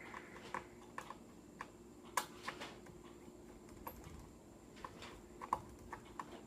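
Small screwdriver working a tiny screw out of a laptop's LCD panel frame: faint, irregular small clicks and ticks.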